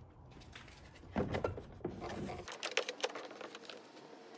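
Plastic scuttle trim panel being handled and pressed into place: a louder rubbing scrape about a second in, then a run of light plastic clicks and taps.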